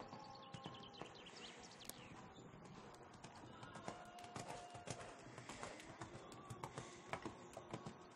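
Faint hoofbeats of a horse cantering on sand footing: irregular soft thuds and clicks.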